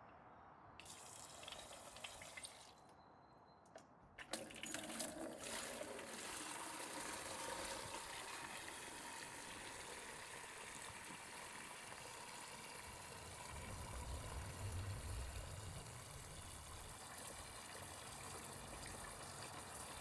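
Water from a garden hose splashing into a plastic bucket as it fills. A short spurt comes about a second in, then a brief pause, and from about four seconds in a steady stream runs on.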